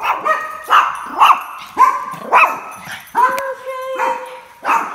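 A dog barking excitedly in quick succession, about two barks a second, with one longer drawn-out call a little past the middle.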